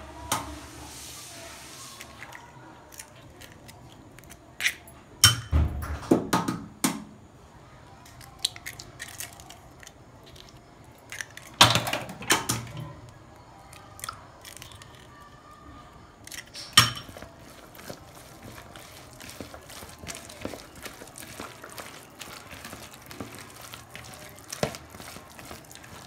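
Raw eggs cracked open over a plastic mixing bowl, with a few sharp knocks, and a hand squelching the egg into minced boiled-chicken and onion filling for mughlai paratha.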